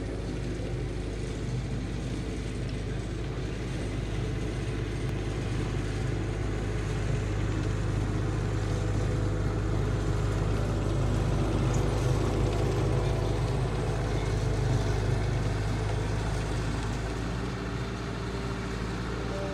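Engine of a small stand-on tracked loader running steadily as it carries a tree with its root ball across a lawn. It grows a little louder midway and its note shifts slightly near the end.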